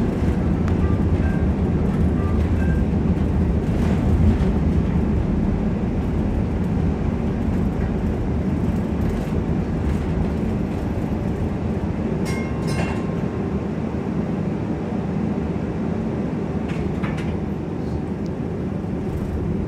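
Onboard running noise of a 1947 St. Louis Car Co. PCC streetcar under way: a steady low rumble of the car rolling on its rails. A few faint clicks and a brief thin whine come about twelve seconds in.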